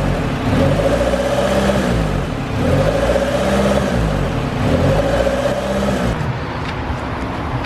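Car engine running on a dyno, its revs rising and falling in waves about every two seconds, settling somewhat near the end. It is running to pump the old gasoline out through the unplugged fuel return line into a jug.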